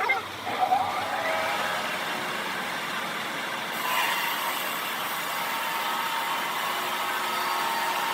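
Machinery running steadily with an engine-like drone and a faint whine, with brief shifts in pitch in the first second or so.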